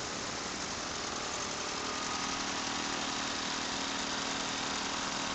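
Several VéloSoleX mopeds' small 49 cc two-stroke engines idling together, a steady, even engine noise.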